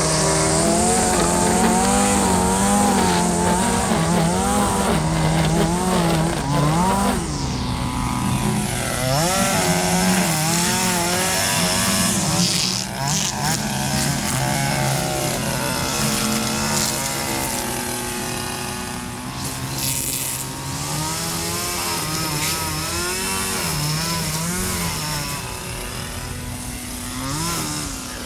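Two-stroke gas string trimmer running at high throttle, its engine pitch wavering up and down every second or so as the spinning line bites into grass and weeds, with a high hiss from the line.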